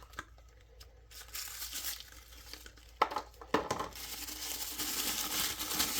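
Brown tissue paper crinkling and rustling as a pocketknife is unwrapped from it, with two sharp knocks about halfway through; the rustling gets busier toward the end.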